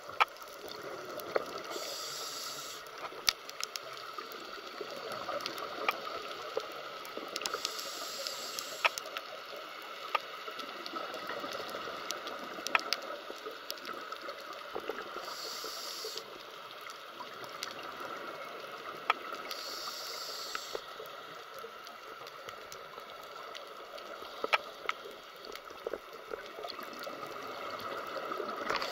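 Scuba regulator exhaling underwater: four bubbling hisses, each about a second long and several seconds apart. Between them is a steady underwater background with scattered sharp clicks.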